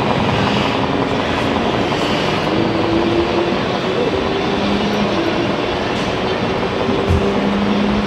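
Scale RC semi-truck running along a model road, a steady mechanical rumble with a low hum that comes and goes, over the constant background noise of the hall.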